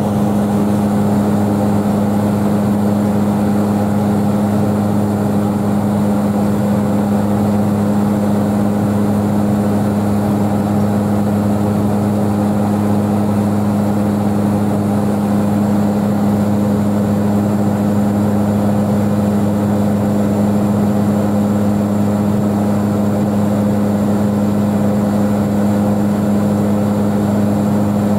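Propeller airliner's engines and propellers droning steadily in cruise, heard inside the cabin: a constant low hum with a steady tone over a rush of air.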